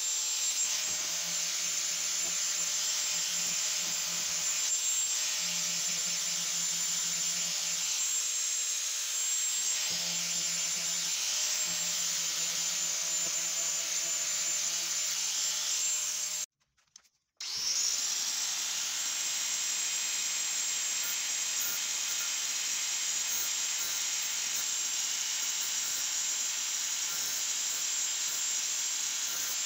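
Angle grinder's abrasive disc grinding a steel saw blade: a steady grinding hiss of disc on metal with the motor's hum rising and falling beneath it. It cuts out for about a second partway through, then the grinding goes on steadily.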